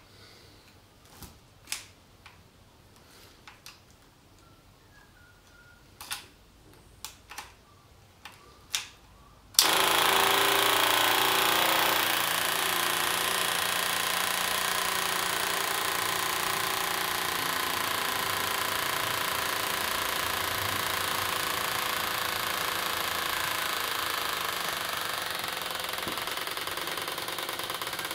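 A few light clicks, then about ten seconds in the Honda CBR250R MC19's electric fuel pump switches on suddenly and runs steadily, pumping fuel to refill the long-dry carburettors.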